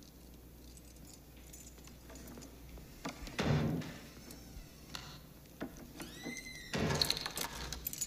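Quiet hospital-corridor room tone with scattered faint clicks and knocks. A louder door sound comes about three and a half seconds in, a short squeak that rises and falls comes around six seconds in, and another clatter follows near the end.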